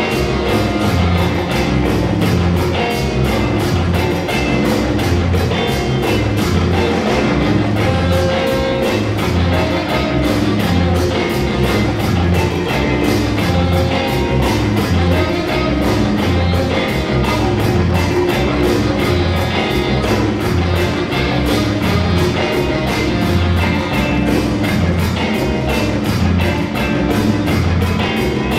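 A live afrobeat band plays an instrumental groove: the drum kit keeps a busy, even beat over a bass line that repeats about once a second, with guitar and horns.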